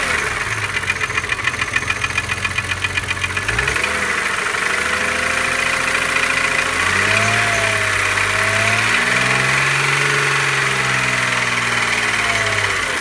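BMW E36 M3's S50B30 straight-six engine running with a fast, regular ticking, which the owner traces to the spot next to the oil filter and cannot explain; bearings, chain tensioner and valve clearance have checked out fine. After about four seconds the engine speed rises and falls a little and the ticks blend into a steadier engine note.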